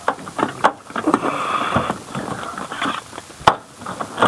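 Handling noises from hand-held suction cup lifters and tools: irregular clicks and knocks, a short rustle about a second in, and a sharp click near the end.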